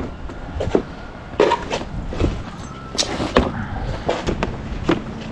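Irregular knocks and clacks of hard putting-green base panels being handled and pushed into place, about nine sharp hits spread unevenly over a few seconds.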